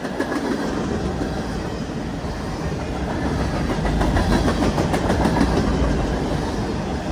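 Norfolk Southern manifest freight train's cars rolling past, a steady rumble with the wheels clacking over the rail joints, growing a little louder partway through.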